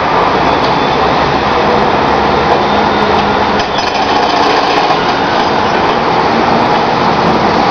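Hydraulic breaker on a Komatsu backhoe loader hammering asphalt, steady and loud over the machine's engine.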